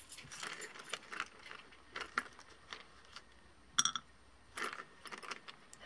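Baked polymer clay cranberry beads clicking and rattling as they are set down by hand on a sheet of paper: scattered light clicks and rustles, with one sharper click near the end.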